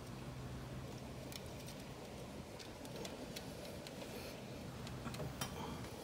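Faint, scattered metallic clicks and taps of a crescent wrench being fitted and worked on a camshaft of a Toyota 2ZZ engine, over a low steady hum.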